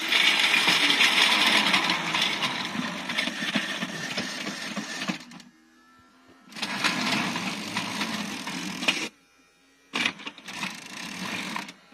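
Plarail battery-powered toy trains running on plastic track, the gear motor whirring and the plastic wheels clattering as they climb the mountain grade. It comes in three stretches, breaking off almost to silence about five seconds in and again about nine seconds in.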